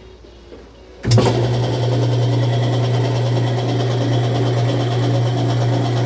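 Whirlpool direct-drive washer's motor kicking on with a sudden jolt about a second in, then running steadily in spin with a hum and a scraping, popping sound. The drum is struggling and not getting up to speed.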